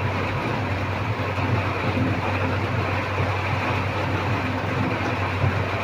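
Steady rain falling, an even rushing noise with a low hum underneath.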